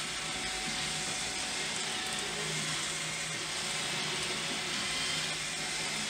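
Roomba 650 robot vacuum running on the ramp: a steady whir of its vacuum motor and brushes at an even level.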